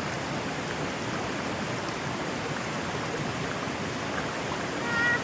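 River water rushing over rocks, a steady wash of noise. A brief high-pitched sound comes near the end.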